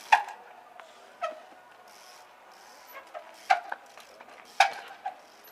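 Trials mountain bike hopping on a pile of logs: four loud, sharp knocks of the wheels striking the wood, with a few lighter knocks between them, each followed by a short ring.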